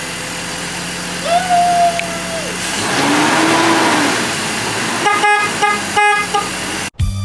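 Car engine running on freshly fitted spark plugs and coil packs, with several short car-horn toots about five to six and a half seconds in.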